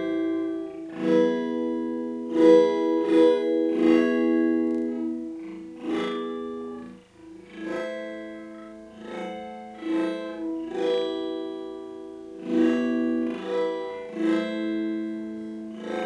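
Plucked guitar notes run through a granular pitch-shifting effect with delay, several pitches ringing together in layers. New notes start about once a second, with a brief drop in level about seven seconds in.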